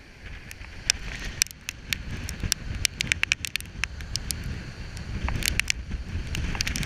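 Heavy storm surf breaking on a rocky shore, a low steady rumble with wind buffeting the microphone. Many sharp ticks are scattered through it.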